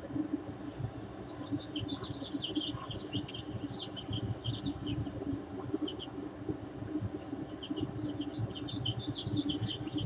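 Small birds chirping in quick, short notes, with a couple of higher calls mixed in, over a steady low background rumble.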